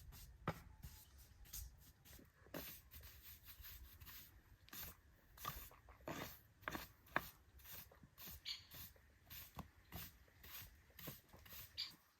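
An irregular run of short scraping strokes, a hand tool rubbing on a rough surface, about one or two a second.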